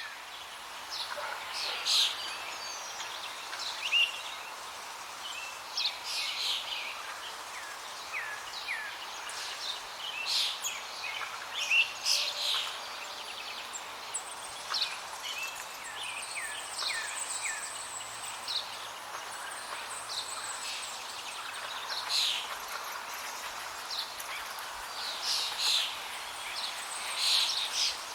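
Flowing water making a steady rushing hiss, with many songbirds chirping and calling over it in short, frequent phrases, and a high thin trill in the middle.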